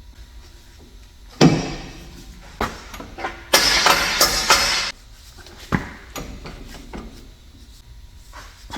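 Exhaust pipe being worked into position under a car: a loud knock, a few lighter clicks, then about a second and a half of scraping, and another knock.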